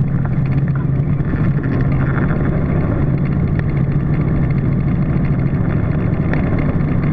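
Robinson R44 helicopter's Lycoming six-cylinder piston engine and rotor running, heard from inside the cabin as a steady loud drone with a low hum.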